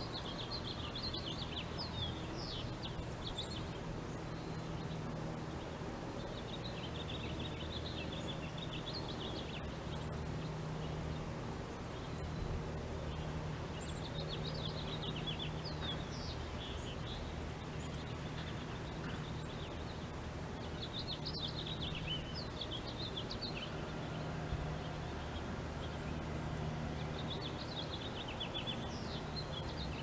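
A small songbird singing a rapid, high twittering phrase of about two to three seconds, five times, roughly every six to seven seconds, over a steady low hum.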